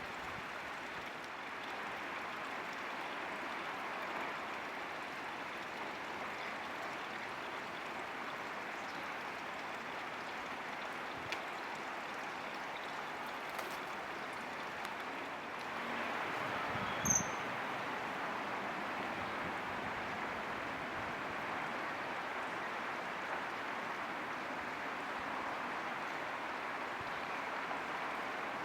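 Steady rushing of a stream's running water, with one brief high-pitched chirp about two-thirds of the way through.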